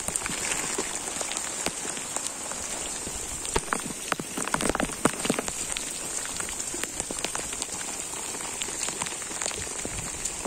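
Steady heavy rain falling on hillside scrub and grass, with sharp drop hits close to the microphone throughout. A run of louder close knocks comes about four to five seconds in.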